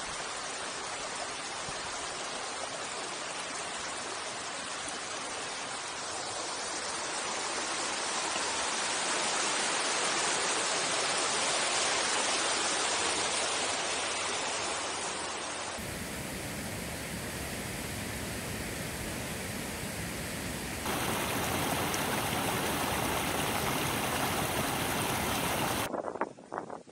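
Mountain stream rushing over rocks: a steady wash of water noise that swells for a while in the middle. The sound shifts abruptly twice in the last third, staying a steady rushing noise.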